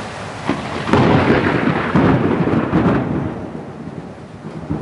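Thunder from a close cloud-to-ground lightning strike: a sharp crack about half a second in, then a loud crackling rumble that dies away over the next few seconds. Rain hisses steadily underneath.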